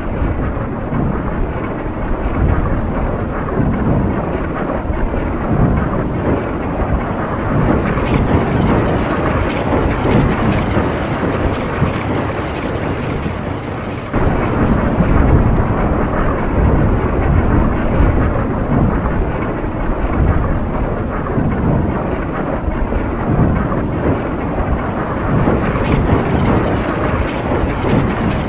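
Recreated massed Civil War artillery barrage, many cannons firing over the listener: a continuous rumble of overlapping booms with no gaps between shots. It grows suddenly louder about halfway through.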